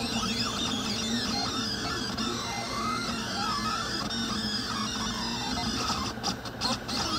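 Delta 3D printer's stepper motors whining as the print head moves, their pitch gliding up and down with each move, over a steady hum, with a few brief pauses near the end.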